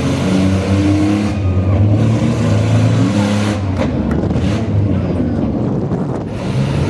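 Minivan engines revving in a demolition derby, with a few sharp knocks about four seconds in.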